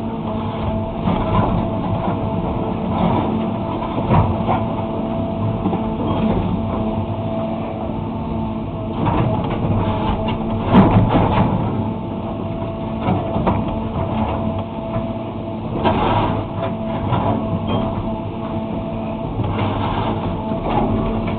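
An excavator's diesel engine runs steadily under load, with irregular scraping, crunching and clunks as the bucket tears up asphalt. The loudest crunch comes about eleven seconds in.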